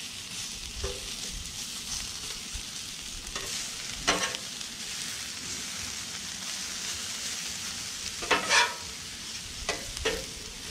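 Shredded hash browns frying in peanut oil on a hot Blackstone flat-top griddle, a steady high sizzle. A metal spatula scrapes across the steel griddle twice, about four seconds apart, with a few lighter scrapes near the end.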